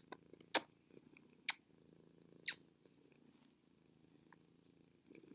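Pet cat purring faintly and steadily, with a few sharp clicks in the first couple of seconds.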